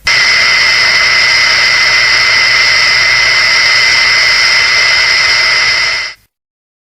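Kaiju sound effect: a loud, steady hissing whine with two high held tones, starting abruptly and fading out about six seconds in.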